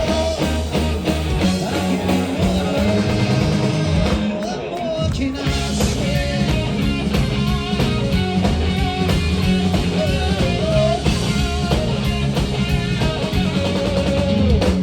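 Live rock band playing: electric guitar, bass, drum kit and singing.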